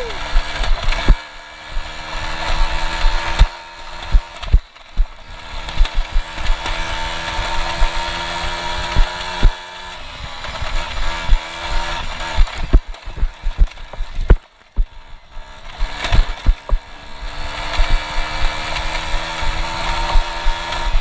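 Polini-tuned Piaggio Ciao SC moped's small single-cylinder two-stroke engine running under throttle off-road, its pitch rising and falling with the throttle. Frequent knocks and rattles come from the bike jolting over rough grass, and the engine drops away briefly twice, a few seconds in and about two-thirds through.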